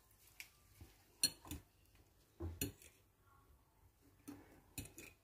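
Faint, scattered clicks of a metal fork against a ceramic bowl of tempeh in beaten egg: several short knocks, some in quick pairs.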